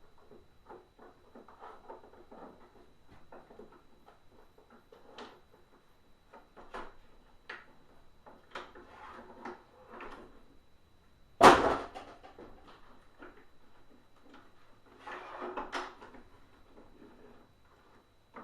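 Plastic parts of a Hoover SteamVac carpet cleaner being handled and worked apart: scattered clicks, rattles and knocks, with one loud knock about eleven and a half seconds in.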